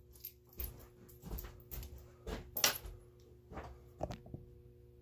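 Craftsman tractor seat being handled and shifted on a wooden workbench: a string of light knocks and rattles, the loudest a little past the middle, over a faint steady hum.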